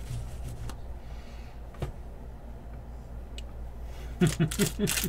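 Baseball trading cards being handled and flipped: faint scattered clicks over a low steady hum, then a quick run of louder rustles about four seconds in.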